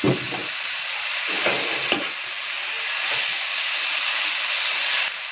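Chopped banana flower and soaked red lentils with spices sizzling as they fry in hot oil in a pan while being stirred, with a few short knocks of the stirring utensil near the start and around two seconds in.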